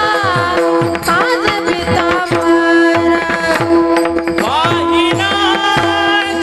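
Marathi devotional abhang singing in a high voice, with long held notes and ornamented glides. It is accompanied by a hand drum whose bass strokes slide down in pitch, over a steady drone note.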